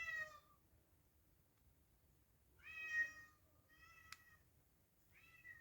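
Domestic cat meowing repeatedly: the end of one meow at the start, then two meows in close succession in the middle and a short one near the end. A single sharp click falls during the third meow.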